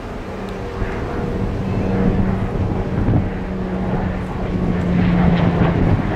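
Propeller aircraft engine droning overhead, growing louder as the plane approaches.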